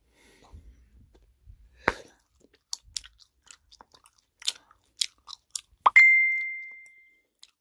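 Mouth clicks and smacks of bubble gum being chewed. Near the end, a single loud bell-like ding starts with a click and rings out for about a second.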